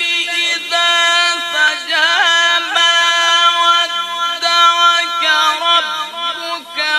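A man reciting the Quran in the melodic chanted style of tilawat, holding long notes and ornamenting them with quick wavering turns, with short dips between phrases.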